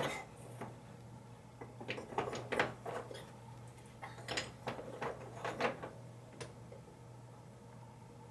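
Light clicks and knocks, one near the start and a cluster from about two to six seconds in, over a steady low hum.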